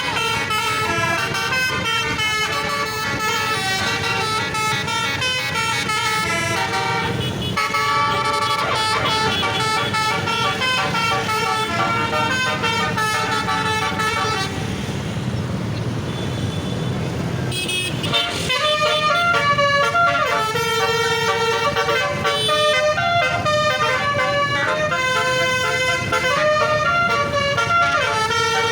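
Bus basuri horn, a multi-trumpet musical air horn, playing a long tune of stepped notes, the sustained 'ngoyot' style of basuri horn playing. The notes give way to a noisy hiss about halfway through for a few seconds, then the tune plays on.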